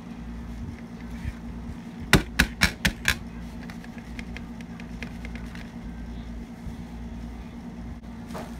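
A glass mason jar full of flour knocked down five times in quick succession, about four knocks a second, to settle the flour and drive out air pockets. A steady low hum runs underneath.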